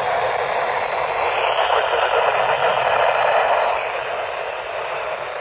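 Steady static hiss from a weather radio receiver, easing a little about four seconds in.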